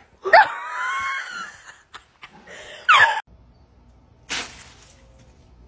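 A dog giving loud, high-pitched screaming yowls in protest at being petted: one long cry that wavers in pitch, then a short one falling in pitch about three seconds in. A brief noisy burst follows near the end.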